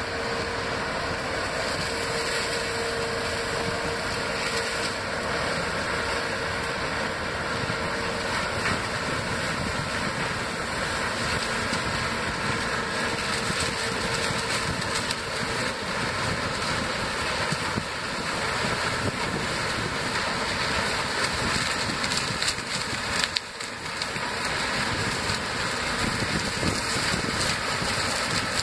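MF 205 sugarcane harvester and its Massey Ferguson tractor running while cutting cane: a steady, dense machinery noise with no pauses, carrying a faint steady hum through the first several seconds.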